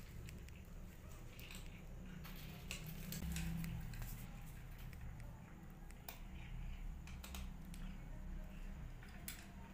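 Scattered light clicks and scratchy rustles of cats moving against a cardboard box and blanket, over a low steady hum.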